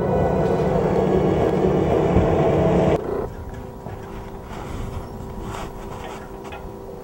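Snowmobile engines running as the machines travel over ice. About three seconds in the sound drops suddenly to a quieter steady hum with a few faint clicks.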